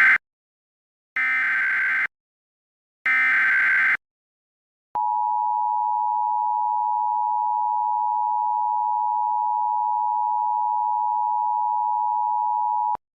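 Emergency Alert System SAME header: the end of one burst, then two more short bursts of shrill digital data screech, each about a second long. After a second's pause comes the EAS two-tone attention signal, a steady dual tone of 853 and 960 Hz held for about eight seconds and cutting off sharply.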